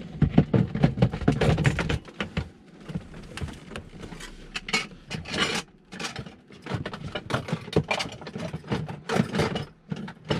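Rummaging through a clear plastic storage box: the clatter and scrape of plastic lids and loose items being pushed about, with irregular knocks. It is heaviest in the first two seconds.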